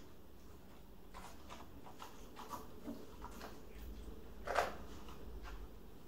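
Faint paper rustles and small clicks of a large hardcover picture book being opened and its pages handled, with one short, louder sound about four and a half seconds in.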